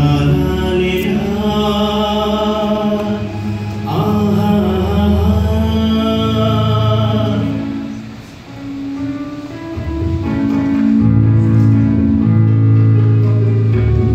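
A man sings a Telugu devotional song into a microphone, amplified over the hall's PA, with electronic keyboard and tabla accompaniment. About eight seconds in, the voice stops and the keyboard carries on alone with held notes.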